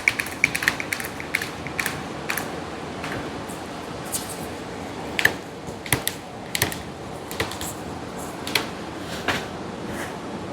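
Hand-pumped hydraulic lug crimper (Harbor Freight Pittsburgh) clicking as its handle is pumped to crimp a double-aught copper lug onto battery cable. A quick run of clicks over the first two seconds, then slower, spaced clicks.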